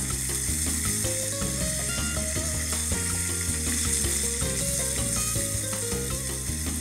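Beef short ribs and chuck roast sizzling as they sear in a pot and are turned with tongs, with background music playing throughout.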